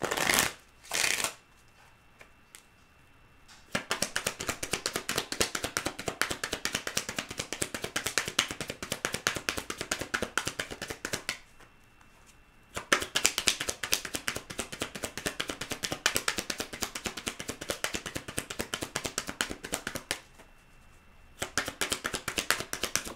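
A deck of tarot cards being shuffled by hand: two short bursts near the start, then three long runs of rapid card clicks. The longest runs last about seven seconds each, and there are short pauses between the runs.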